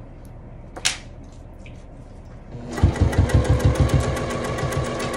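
Juki sewing machine starting up about halfway through and running steadily, its needle stitching in a fast, even rhythm along a zipper seam. Before it starts there is a single sharp click.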